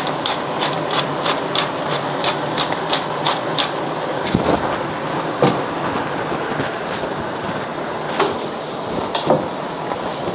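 Pepper grinder being turned over the pan, about three clicks a second for the first three and a half seconds, over the steady hiss of a cream sauce simmering in a frying pan. A few single knocks follow later on.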